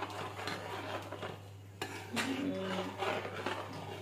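A spoon stirring and scraping in a bowl, irregular clatters as maida flour is mixed into warm sugar water to make shankarpali dough.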